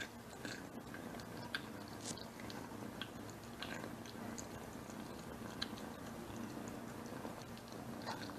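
Kitten eating from a ceramic bowl: wet, smacking chewing with scattered sharp clicks, over a steady low purr as it eats.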